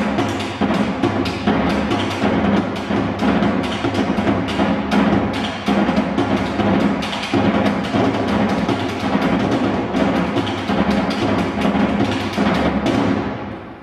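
Drums played in a steady, driving rhythm, fading out at the end.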